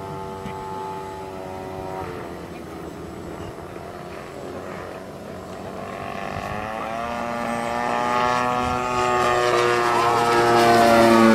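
Radio-controlled model airplane's small engine droning in flight. It fades for a few seconds, then grows louder with its pitch sliding up and down as the plane flies closer.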